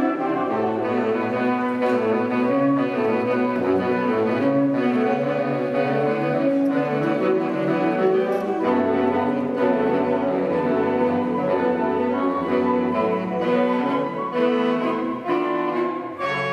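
Small woodwind ensemble of flutes and saxophones playing a piece together, several held notes sounding at once and moving from chord to chord.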